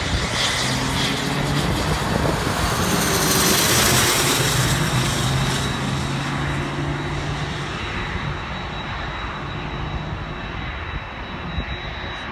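Cessna 501 Citation business jet's twin turbofan engines passing low overhead on landing approach: a jet whine over a low hum, loudest about four seconds in, the whine dropping in pitch as it passes, then fading as it flies away.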